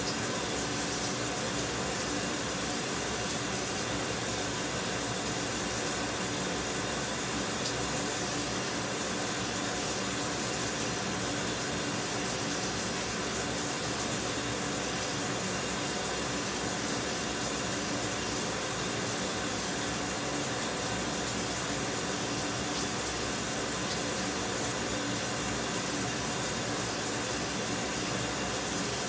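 Shower running: a steady, even hiss of falling water spray, with a faint steady hum beneath it.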